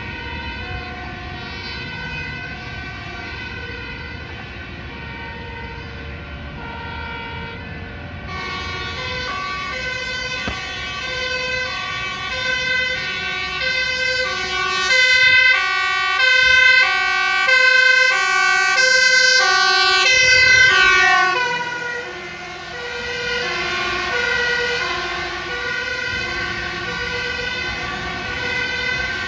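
Two-tone sirens of several emergency vehicles, fire engines among them, each alternating between two pitches about once a second and overlapping one another. They grow louder from about eight seconds in and are loudest in the middle, where a brief drop in pitch comes as one passes close. The sirens then carry on a little fainter.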